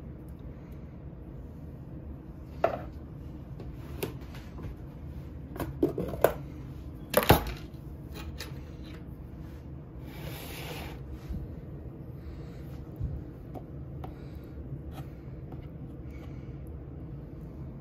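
Kitchen handling sounds: a few sharp knocks and clinks of a can and utensils being handled around a crock-pot, loudest about seven seconds in, over a steady low hum.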